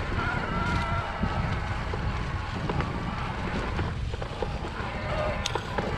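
Electric mountain bike's motor whining under pedalling, over a steady low rumble of wind on the microphone, with a few small clicks and knocks from the ride. The whine fades in the middle and comes back near the end.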